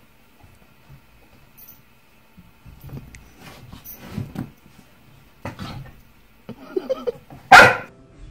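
A dog vocalizing in short bouts, ending in one loud bark near the end.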